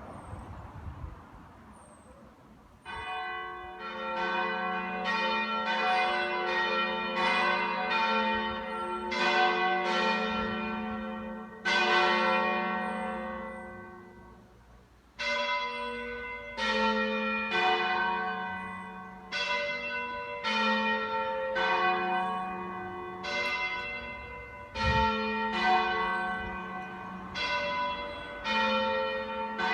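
Italian church bells ringing: several bells of different pitches struck one after another in an uneven run, each note ringing on and fading. The ringing starts about three seconds in, dies away for a few seconds midway, then picks up again.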